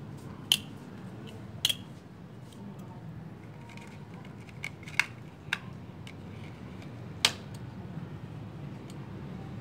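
About six sharp, separate clicks and snaps as a metal paper clip is worked onto a plastic strip on a bicycle's rear frame stay, over a steady low hum.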